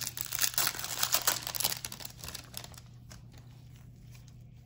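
Foil wrapper of a trading-card pack crinkling and tearing as it is opened, a dense crackle for the first two and a half seconds that thins to a faint rustle of cards being handled.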